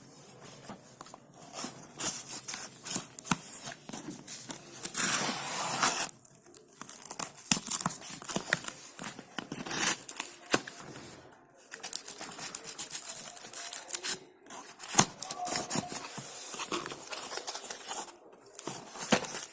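Shipping packaging being torn open by hand, crinkling and rustling in irregular bursts, with one longer tear about five seconds in.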